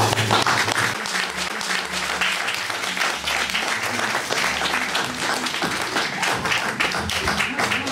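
A small audience applauding, a dense, steady patter of many hands clapping.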